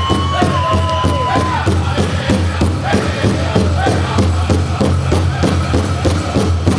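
Powwow drum group singing a chicken dance song: high men's voices hold a long note that falls away about a second and a half in, over a fast, steady beat on a large shared drum.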